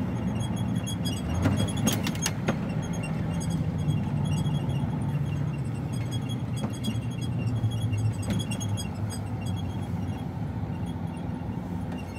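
HGV container lorry's diesel engine and road noise, heard from inside the cab as it drives, a steady low drone easing a little near the end. A few sharp clicks or rattles sound about two seconds in and once more later.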